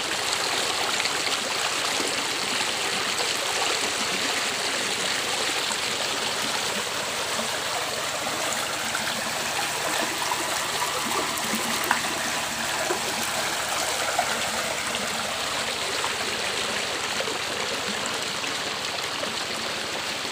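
Shallow stream rushing over rocks and past bare feet, a steady wash of flowing water, with a few brief sharper splashes about twelve to fourteen seconds in.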